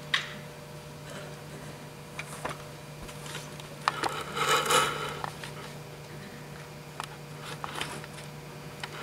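Quiet hall over a steady low electrical hum, with scattered small knocks and clicks of handling near the microphones and a brief rustle of handling about four seconds in.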